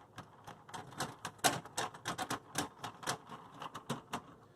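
Screwdriver driving the graphics card's mounting screw into the metal case bracket: a run of irregular sharp metallic clicks, about three to five a second.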